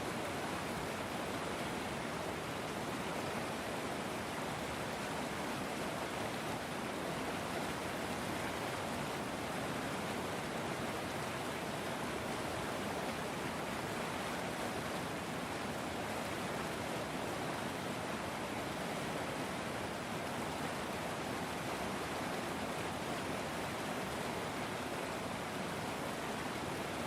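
River water flowing: a steady, even rush that does not change.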